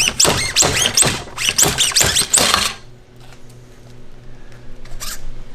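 Showa fork tubes being slid hard against each other as a slide hammer to drive out the fork seal and bushings. The metal clacks about four times a second, each stroke ringing. The hammering stops just under three seconds in, leaving a few faint clicks.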